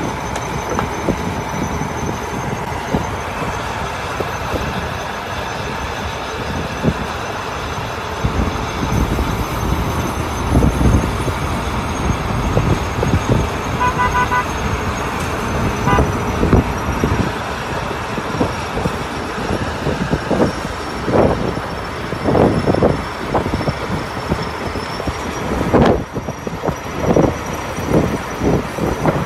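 Heavy truck engine running in deep snow, with irregular gusts of wind buffeting the microphone.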